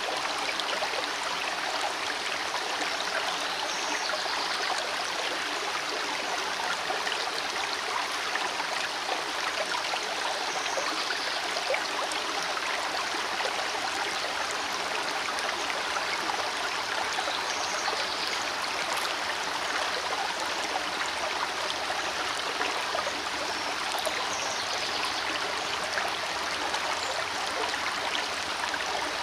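Shallow rocky creek flowing over and between stones: a steady, even rush of water.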